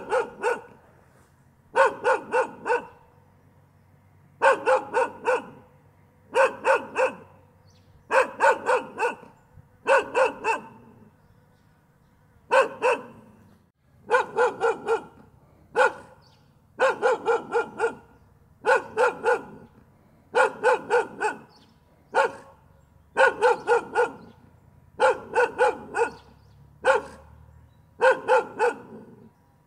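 A dog barking over and over, in quick runs of two to four barks with short pauses between.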